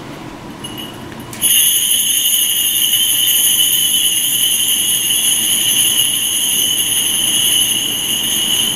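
Kagura suzu, a Shinto bell tree of small brass bells, shaken without pause by a shrine maiden as she dances: a steady bright jingling ring that starts about a second and a half in.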